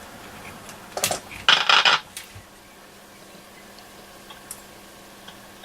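Small hard objects clattering on the workbench in two short bursts, about a second in and again a moment later, then a faint steady hiss with a low hum.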